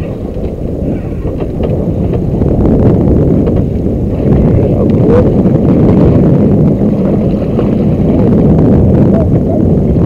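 Heavy wind rumble on the microphone, with water splashing at the boat's side as a shark is handled alongside the hull.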